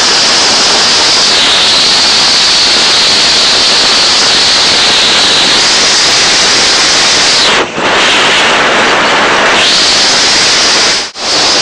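Heavy hail falling hard, a loud, dense, unbroken clatter of hailstones hitting the ground, vehicles and an overhead canopy. The sound briefly drops out twice, once past halfway and once near the end.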